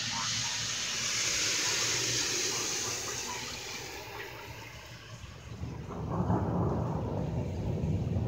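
A thunderstorm: a steady hiss of rain for the first few seconds, then a deep roll of thunder that begins about six seconds in and grows louder.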